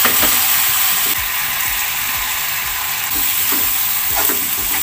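Beef kaldereta with potatoes and carrots sizzling in a frying pan as a spatula stirs it: a steady hiss with scrapes and light knocks of the spatula against the pan.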